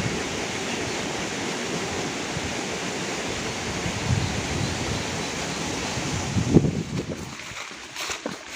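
Steady rushing of flowing river water, with a few low buffets of wind on the microphone. About seven seconds in, the rush drops away suddenly, leaving a quieter background with light clicks and rustles.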